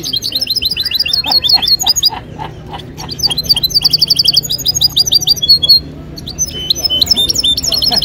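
Caged European goldfinch singing: fast runs of high repeated notes and trills. The song thins out briefly about two seconds in and breaks off for a moment near six seconds.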